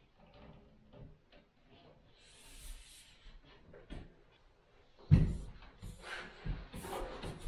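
Handling noises from a mirror frame being set over a wall mirror: light scraping and small knocks, a heavier thump about five seconds in, then a quick run of taps and rubbing as the frame is pressed into place.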